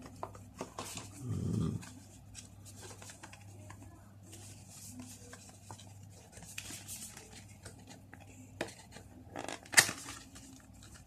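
Handling of a smartphone's retail box and its packaging: scattered rustles, scrapes and small clicks, a dull low bump about one and a half seconds in, and one sharp click near the end, the loudest sound.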